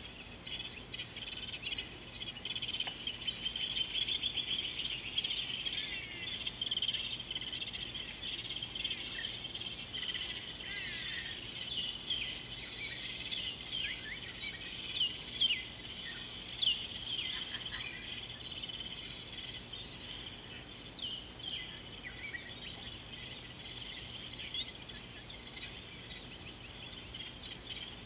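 Many birds calling together in the bush: a dense run of short chirps and quick downward-sweeping whistles over a steady high hum of insects. It is busiest in the first half, with a few louder single calls a little past the middle.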